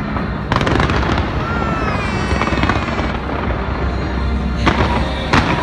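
New Year fireworks display: a continuous rumble and crackle of bursting shells, with a sharp bang about half a second in and two more near the end. Thin tones glide up and down through the middle.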